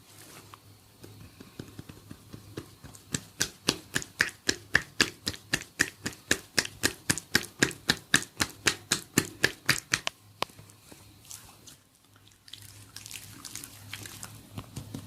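Rapid rhythmic tapping strikes on a person's head during a head massage, about four a second for some seven seconds, between softer close-up rubbing sounds of hands working an oiled scalp.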